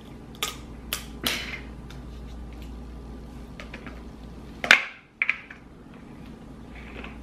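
Kitchen scissors snipping and cracking through crab leg shells: a few sharp snaps near the start, the loudest crack a little past the middle, then a couple of quick clicks.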